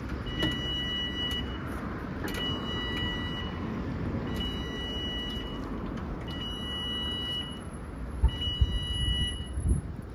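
Railway level crossing audible alarm sounding while the barriers are down: a steady electronic beep about a second long, repeating every two seconds, five times. Road traffic runs underneath, and a few low thumps come near the end.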